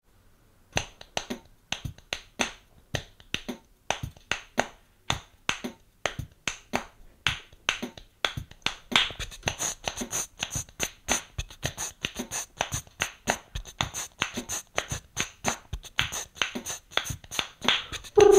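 Looped percussion: a steady beat of sharp clicks with short hi-hat-like hisses starts about a second in and is layered on a loop station, turning into a denser, busier groove about eight seconds in.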